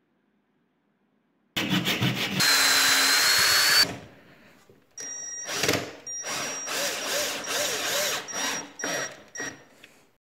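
Handheld power drill working at the hub of a wooden cart wheel: one loud run of about two seconds with a slightly rising whine, then, after a short pause, a string of short trigger bursts that start and stop.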